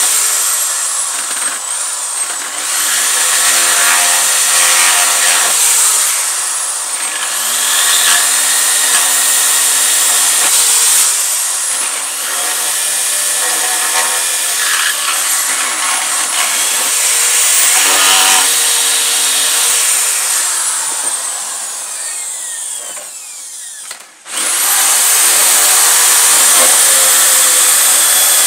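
Corded electric drill boring into a wooden board. Its motor speeds up and sags again over and over, in stretches of a few seconds each. Near the end it stops for a moment, then starts again at full speed.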